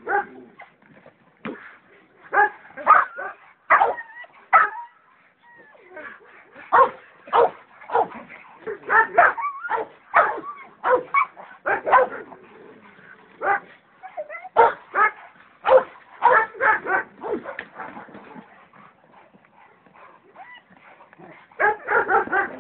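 Dog barking repeatedly in irregular runs of short, sharp barks, with a couple of quieter gaps between runs.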